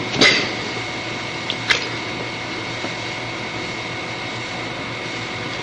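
Steady hiss of an old recording, with a faint steady high whine running through it. Two short sounds come through, about a quarter second in and again just under two seconds in.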